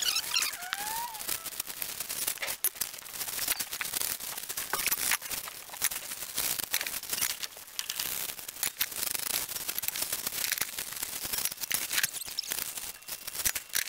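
Plastic bags crinkling and tearing as galvanized steel carport fittings are unwrapped and pulled out of a cardboard box, with many sharp crackles and clicks throughout.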